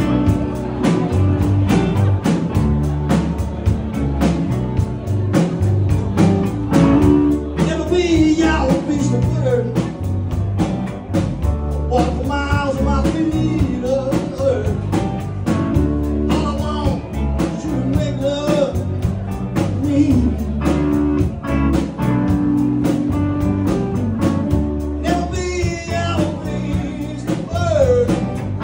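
Live electric band playing: electric guitars, bass guitar and drums with a steady beat, and a man singing lead from about seven seconds in.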